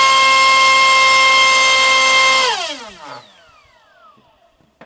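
Turnigy 2836 3200 kV brushless EDF motor driving a 4.5x4.5 sport propeller at full throttle on a thrust stand: a loud, steady high-pitched whine. About two and a half seconds in the throttle is cut, and the whine falls in pitch and fades as the prop spins down.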